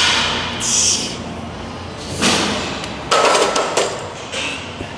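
Hard breaths from a man pressing a loaded barbell overhead, then metallic clanks about three seconds in as the bar goes back into the rack's hooks.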